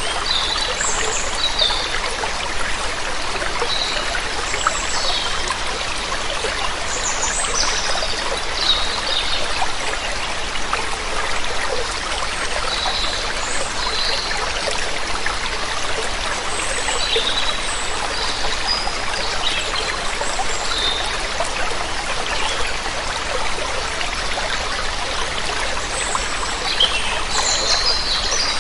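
Steady rush of running water, with short, high bird chirps scattered throughout.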